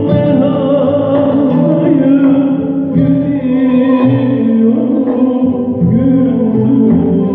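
Live Turkish folk music: a small ensemble of bağlama and violin playing a türkü, with a singer's wavering melody over the instruments.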